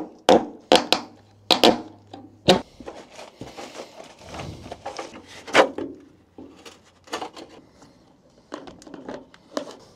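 A claw hammer knocking on a metal downspout bracket, five sharp knocks in the first two and a half seconds. Then footsteps crunching on gravel and the clatter and clicks of a corrugated plastic downspout extension being handled and fitted.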